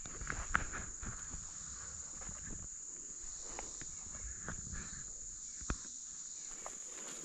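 A steady high-pitched insect drone, with scattered light crunches and snaps of footsteps, busiest in the first second, and one sharper click near six seconds in.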